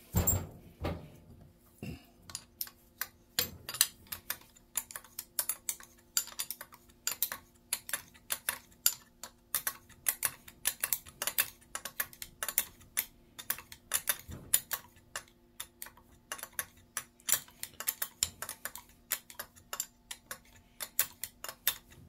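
Small hand wrench clicking on metal as the housing bolts of a Garrett TE62 turbocharger are worked loose: quick light metallic clicks in short irregular runs, with a knock at the start as the turbo is handled.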